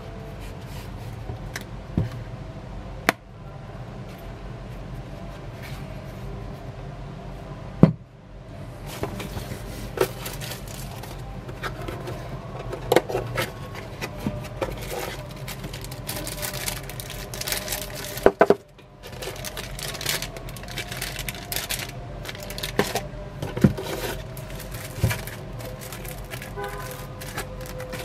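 Cardboard product box and its packaging being handled: scattered knocks and taps, then, from about nine seconds in, continuous rustling and scraping of cardboard and plastic as the box lid and inner flaps are lifted, over a steady low hum.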